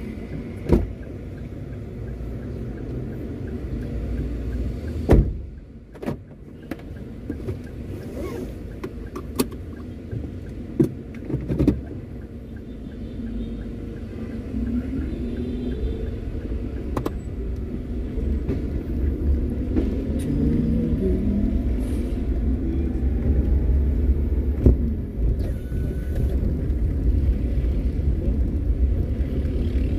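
Car being driven, steady low engine and road rumble with a few sharp knocks. Around the middle the engine note rises in pitch and the rumble grows louder.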